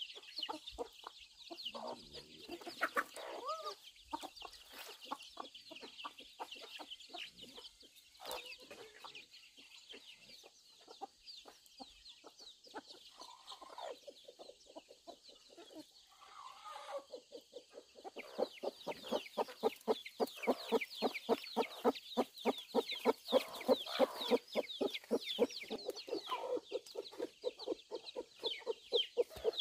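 Chickens clucking, over a constant chorus of high, short chirps. Past the middle the clucking turns into a fast, steady run of repeated clucks and gets louder.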